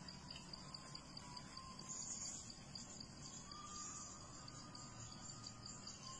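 Insects chirping steadily in a fast, even pulse, with a fainter high hiss above it.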